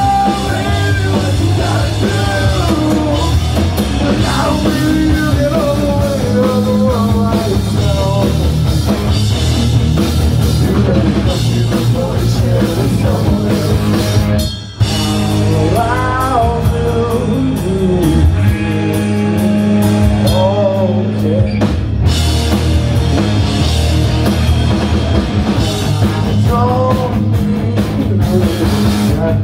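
Punk rock band playing live, with electric guitars, bass, a drum kit and sung vocals. The band stops for an instant about fifteen seconds in, then comes straight back in.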